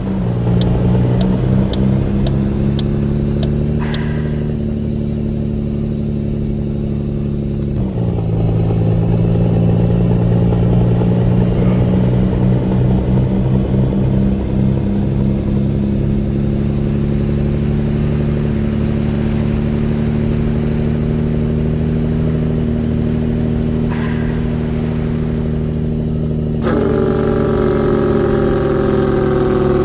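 Truck engine running under way, a steady drone with brief dips in pitch at the start and about eight seconds in, like gear changes. Near the end a louder, higher note comes in and falls steadily in pitch.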